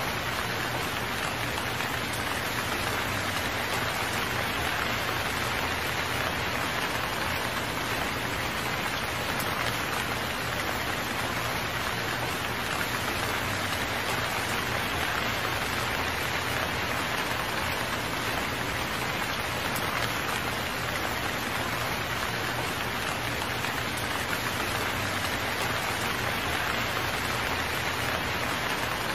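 Steady rain falling, an even hiss that holds constant with no thunder or sudden drops standing out.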